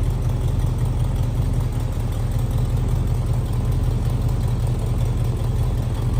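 Pontiac Trans Am's V8 running steadily with its muffler welded back in, an even low exhaust rumble with no revving.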